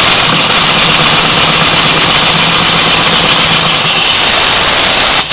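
Small brass twin-cylinder model steam engine running steadily at speed, its exhaust making a loud continuous hiss over a faint low hum.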